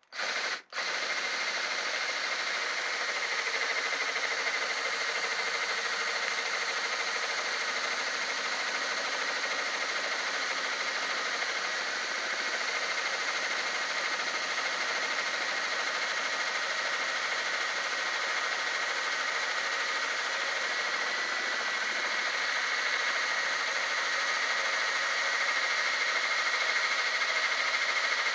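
Homemade lathe tool-post drill spinning a center drill, starting up right at the start and then running steadily as a continuous whine and hiss, a little louder near the end. The drill is being brought in against a shaft that turns out to be hardened steel.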